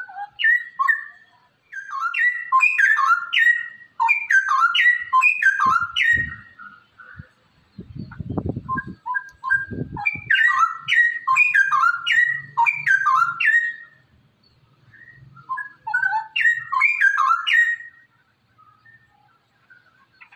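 Straw-headed bulbul (cucak rowo) singing in full voice: rapid, bubbling warbled phrases in several bursts of a few seconds each, with pauses between. A few low rumbles sound in the longer pause around the middle.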